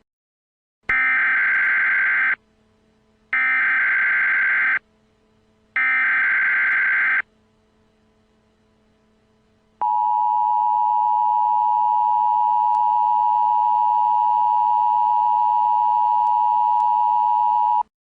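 Emergency Alert System tones: three short bursts of the warbling digital header data, each about a second and a half. Then the steady two-tone attention signal is held for about eight seconds and cuts off near the end.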